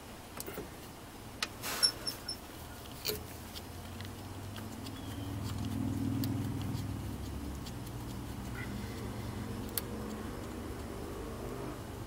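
Sharp clicks and taps of hand work on a radiator hose and its clamp at the thermostat housing outlet, then a low vehicle hum that swells about four seconds in, is loudest around the middle and stays on more quietly.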